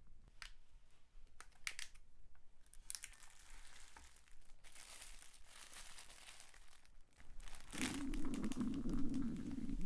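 A stomach growl: a low, rumbling gurgle that starts about three-quarters of the way in and lasts about two seconds. Before it come light crinkling rustles and a few clicks.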